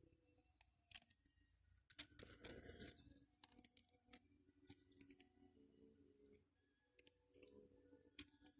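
Faint, scattered small clicks and rustles of a tiny rubber tyre being worked by hand onto a diecast toy car's wheel, with a busier patch of handling about two seconds in.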